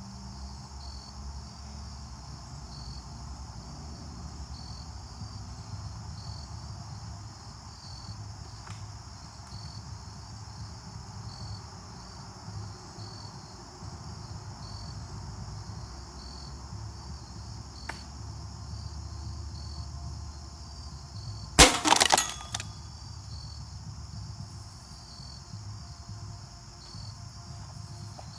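A single shot from a Remington Blackhawk break-barrel pellet rifle about three quarters of the way through, sharp and loud with a short rattle after it. Insects chirp steadily throughout.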